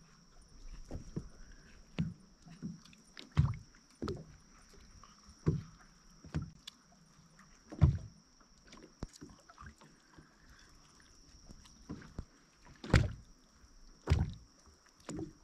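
Water slapping and knocking against the hull of a small boat at irregular intervals, a second or two apart, over a faint steady high whine.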